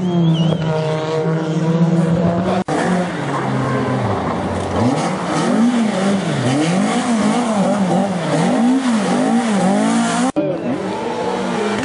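Rally car engine run hard on a stage. It first holds a steady high note, then its pitch repeatedly rises and falls about once a second as it revs and lifts between corners, with two abrupt breaks in the sound.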